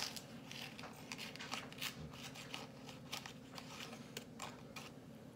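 Faint rustling and crinkling of a Fun Dip candy's paper pouch being handled as the candy stick is worked in the powder, heard as a string of short, quick crackles.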